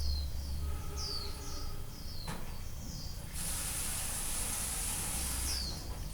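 Small birds chirping, repeated short falling chirps, with a steady hiss lasting about two seconds through the middle.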